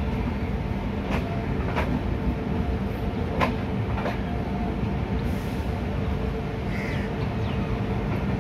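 Mumbai Rajdhani Express passenger coach rolling along the track as the train gathers speed out of the station: a steady rumble of wheels on rail, with a few sharp clicks as the wheels pass over track joints.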